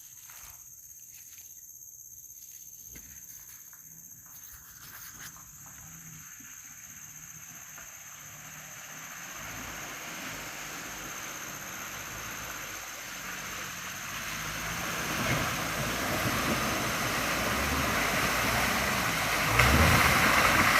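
Daihatsu Gran Max van's engine growing steadily louder as it approaches, with a further jump in loudness near the end.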